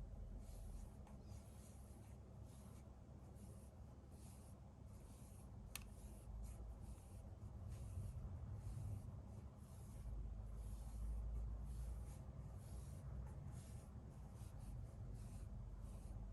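Faint, soft brushing strokes of a dog-stroking paddle rubbing over a Pekingese's fur, repeating about once a second, with one sharp tick about six seconds in.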